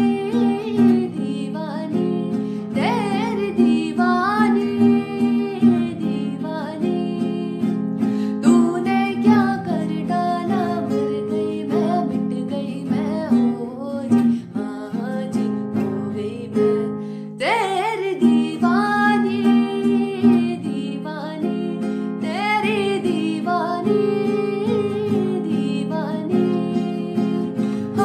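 Background music: a song with guitar and singing.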